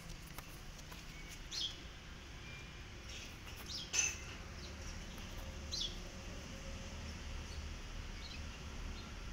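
Birds chirping: a few short, high chirps scattered through, the loudest about four seconds in, over a steady low background rumble.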